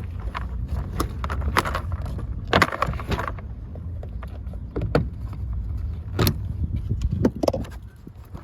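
Plastic door-panel retaining clips snapping loose as the trim panel is pulled off a car door by hand: a series of sharp separate snaps and knocks with rustling handling noise, over a constant low rumble.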